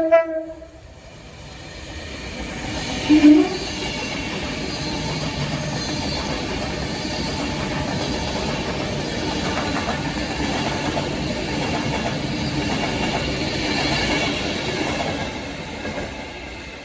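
A train passing at speed: wheel and rail noise builds from about a second in, holds steady for over ten seconds and fades near the end. A horn cuts off at the very start, and a short sharp tone sounds about three seconds in.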